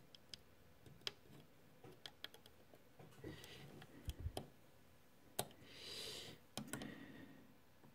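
Faint, scattered clicks and ticks of a steel dental pick against the small plastic pulleys and frame of a cassette deck mechanism while a tiny rubber belt is worked into place. A short hiss comes about six seconds in.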